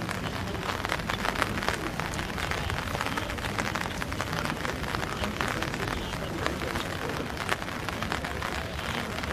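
Steady rain, a continuous hiss dotted with many small drop ticks.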